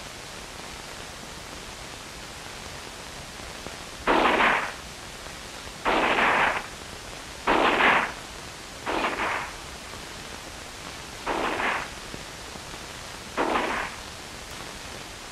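M2 carbine (.30 Carbine) firing six short bursts of automatic fire, each about half a second long and a second or two apart, over the hiss of an old film soundtrack.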